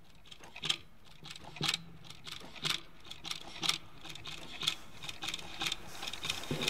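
Wall clock ticking about once a second as its second hand steps, each strong tick followed by a fainter click.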